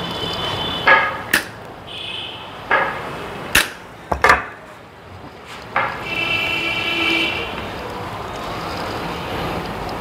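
Cutting pliers snipping the protruding edges off small metal wafers of a Mercedes door lock cylinder: about seven sharp clicks over the first six seconds, some with a brief metallic ring, as the wafers are trimmed to sit flush in the cylinder.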